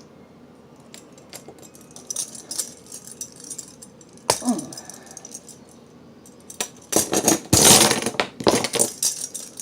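Copper bracelet and vise grips clinking and rattling as the metal is crimped: scattered light clicks, then a louder spell of metallic rattling and clatter near the end.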